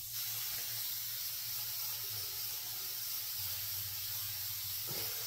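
Aerosol can of hair sheen spray hissing in one long continuous spray.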